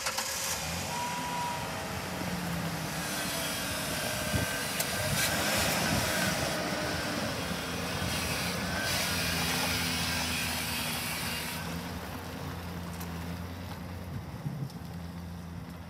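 Ford Ranger pickup's engine running at low speed as it is driven across gravel, with a steady low hum and a broad hiss of tyre noise. The hiss drops away and the sound grows quieter about three-quarters of the way through as the truck moves off.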